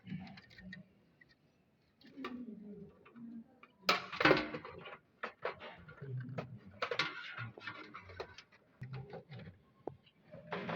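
Irregular clicks and knocks of hands working inside a desktop computer case, plugging a power supply cable back into the CD-ROM drive, with a louder clatter about four seconds in.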